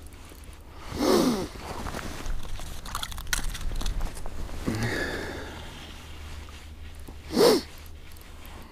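A man's short wordless vocal sounds, grunts or hums that fall in pitch: one about a second in, another around five seconds, and a sharp, loud one near the end.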